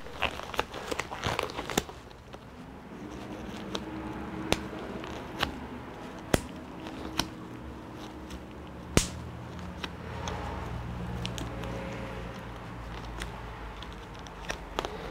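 Steady low room hum with scattered sharp clicks and light taps: a quick flurry of them at first, then single clicks every second or so.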